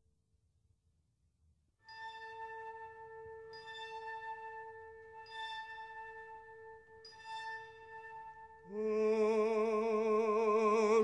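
Background music: after a nearly silent start, a long low note is held while bright ringing notes sound about every one and a half seconds. Near the end an operatic singer with strong vibrato comes in, louder than the rest.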